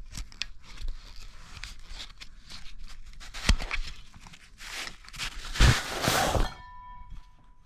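Rustling and handling noise as a stainless steel water bottle is pulled out of a fabric carrier pouch, with two sharp knocks and a longer rustle, then a faint steady ringing tone near the end.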